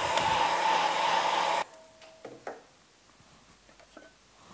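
Handheld electric dryer blowing steadily on wet watercolour paper, drying the paint, then switched off suddenly about a second and a half in. A few light knocks follow.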